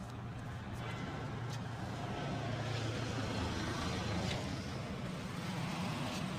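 Street traffic: a motor vehicle's engine running with a steady low rumble, growing louder toward the middle as it passes.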